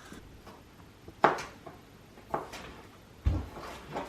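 Kitchen clatter: three separate knocks of utensils or dishes being handled on a counter, about a second apart, the last with a dull thump.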